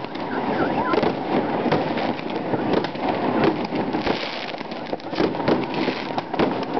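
Fireworks going off close by: rockets and sparking fountains make a dense, unbroken crackle of pops and bangs.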